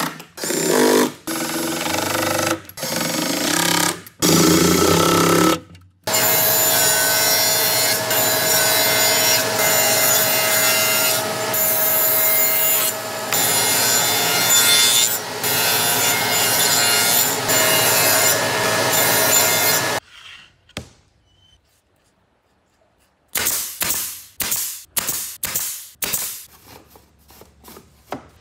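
A Milwaukee Fuel cordless driver drives screws into pine in short bursts for the first few seconds. Then a SawStop table saw runs and cuts a pine board for about fourteen seconds, a steady cutting noise over a held hum, and cuts off suddenly. Near the end comes a quick run of sharp knocks, about two a second.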